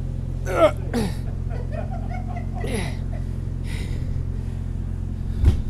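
Steady low hum of an idling engine, with a few short voice sounds and a dull thump near the end.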